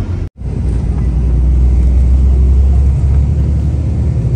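Steady low rumble of a bus's engine and road noise heard from inside the cabin, with a brief dropout to silence just after the start.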